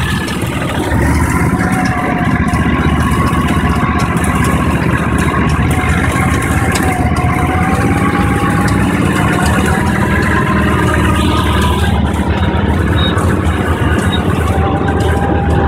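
Tracked Argo eight-wheel ATV engine running steadily under the load of skidding a large round bale through deep snow, with a whine that wavers in pitch over a steady low hum. It gets louder about a second in.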